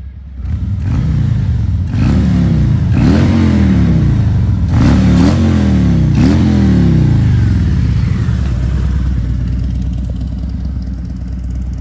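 Harley-Davidson Road Glide Special's V-twin engine revving about four times in quick succession as the motorcycle rides past. It then runs steadily and fades as the bike moves away.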